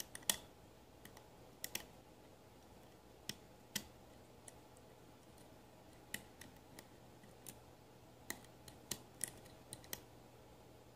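Faint, irregular small metallic clicks as a hook pick probes and sets the pins of a pin-tumbler lock under tension from a bike-spoke tension wrench, about fifteen clicks spread unevenly, over a faint steady hum.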